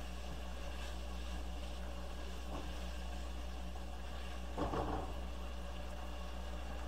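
Spatula stirring and scraping diced onion, celery and carrot in a nonstick pot over a steady low hum, with one louder scrape just under five seconds in.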